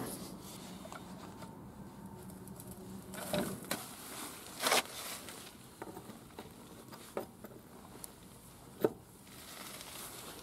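A few scattered metallic clicks and knocks as a wheel wrench is fitted to and turned on the front wheel nuts of a tractor, with light shuffling movement in between.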